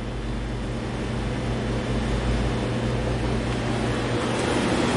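Steady low mechanical hum with an even hiss, growing slightly louder over the few seconds.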